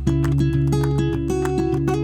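Background music: strummed and plucked acoustic guitar over steady bass notes.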